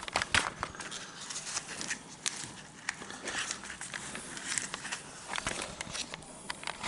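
Irregular rustling, light clicks and taps of a metal-detecting digger being handled and taken out of its packaging.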